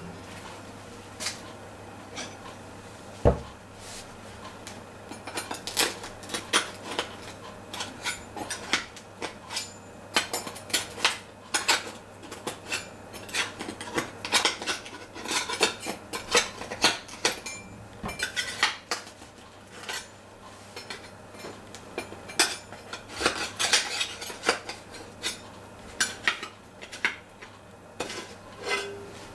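A metal loaf tin clattering and knocking against the counter as freshly baked bread is worked out of it, with many sharp clicks and one heavier knock about three seconds in.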